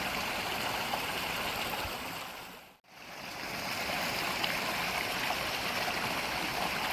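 Mountain stream running steadily. Its sound fades to silence for a moment a little under three seconds in, then swells back up.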